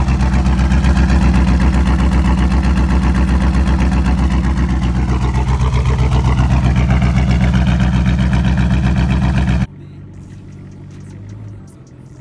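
Pontiac Firebird's LS1 V8 running steadily with an even, pulsing exhaust note just after a cold start. It cuts off suddenly near the end, leaving a much quieter background.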